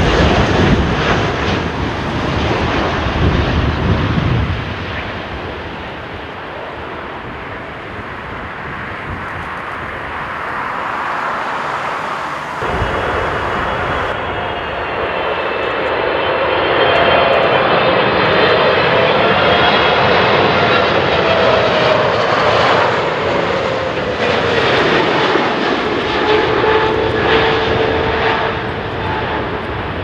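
Jet airliner engines. A loud low roar in the first few seconds eases off. About 13 seconds in, the sound changes abruptly to a Boeing 777-300ER on final approach that grows louder, its GE90 engines' whine sliding slowly down in pitch.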